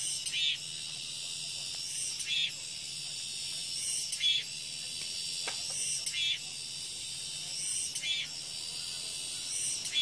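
Cicadas singing in the trees: a steady high-pitched buzz, with a louder call repeating about every second and a half.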